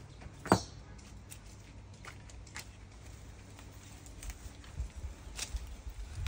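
Hands handling freshly pulled radishes and their leaves: one sharp knock about half a second in as a radish goes into a plastic bowl, then scattered light clicks and rustles as more radishes are pulled from the bed.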